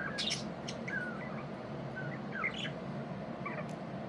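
Budgerigars chirping in short scattered calls and little warbling glides, with a few sharp clicks, over the steady hum of air purifiers.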